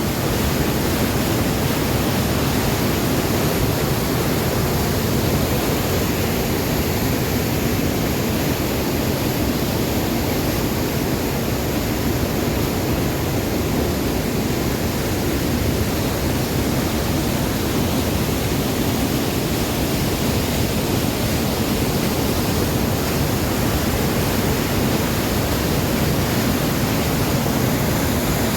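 Large waterfall: a mass of water falling fast and crashing down, heard as a steady, unbroken rushing noise.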